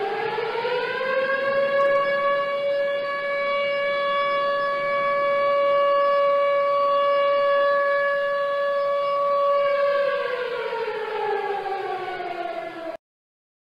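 Civil defense siren sounding the nationwide 9:05 remembrance on 10 November: one steady wailing tone, reached after a rise, that sinks in pitch about ten seconds in and cuts off abruptly near the end.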